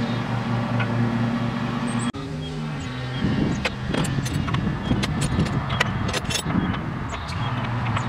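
A steady motor-like hum of a few even tones, broken briefly about two seconds in. From about three seconds in comes a run of short metallic clinks and ticks from a wrench on the bolts of the steering gearbox mounting on the truck frame.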